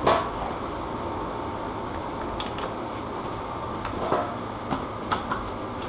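A few light clicks and knocks of bike parts being handled, over a steady whirring background noise.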